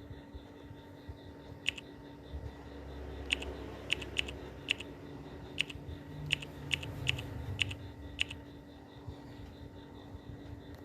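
About eleven sharp clicks, unevenly spaced over some six seconds, with a faint low rumble under the middle of them.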